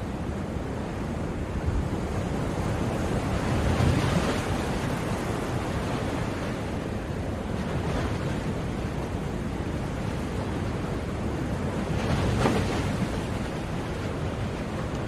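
Ocean surf: a steady wash of waves, with two waves breaking more loudly, one about four seconds in and another near the end.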